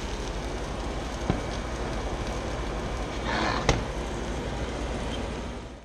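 Steady sizzling hiss of a blackened speckled trout fillet in a hot cast iron skillet, with two sharp clicks of the spatula against the pan, about a second in and again past the middle.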